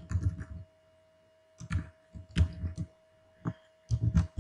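Computer keyboard being typed on: short bursts of keystrokes with pauses between them.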